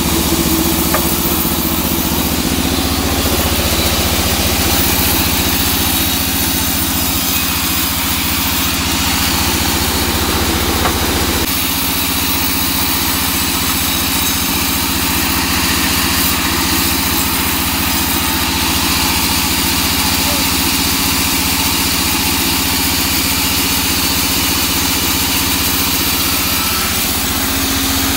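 Large band saw running with a steady hum, its blade sawing lengthwise through a small teak log with a continuous hiss. The low hum shifts about 11 seconds in and again near the end.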